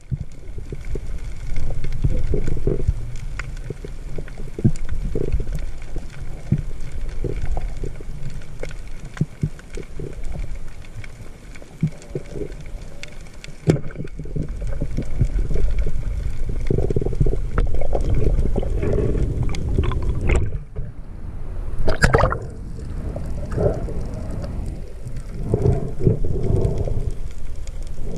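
Water noise in a muffled, underwater-sounding rumble, with scattered small clicks and knocks. One sharp snap comes about three-quarters of the way through.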